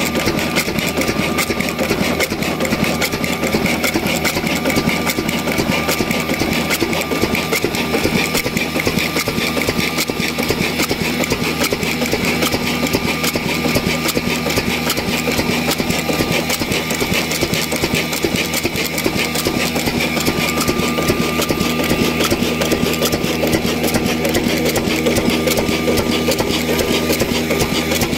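Old stationary Ruston Hornsby-type diesel oil engine running steadily, with a fast, even rhythm of clicks.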